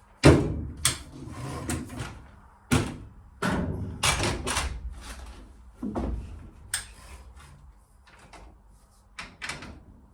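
Clamps being handled and fitted against a timber batten: a series of irregular knocks and clunks, busier in the first half.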